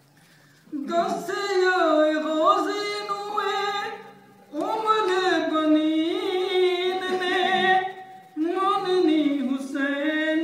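A man's voice chanting a devotional poem in praise of Imam Hussain, unaccompanied, in three long melodic phrases with short pauses for breath between them.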